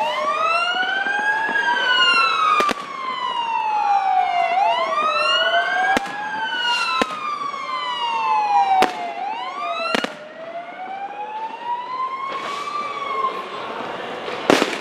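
Fire engines' sirens sounding a slow wail, at least two of them overlapping out of step, each rising and falling over a few seconds and dying away near the end. Sharp fireworks bangs go off every few seconds over the sirens.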